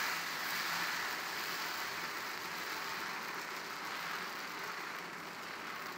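Radish dosa batter sizzling on a hot dosa griddle while a ladle spreads it out. The hiss is steady and slowly fades.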